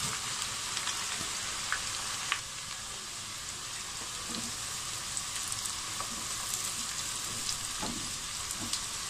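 Chopped onions frying in hot oil, a steady sizzle with scattered small pops, stirred with a silicone spatula.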